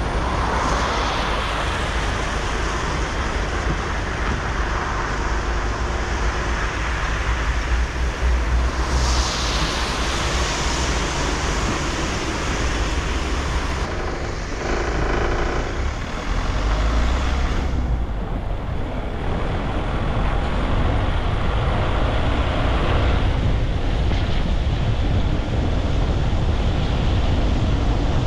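Steady highway road noise from a moving vehicle, tyres on the road with other vehicles swishing past several times. A short pitched hum from a passing vehicle sounds about halfway through.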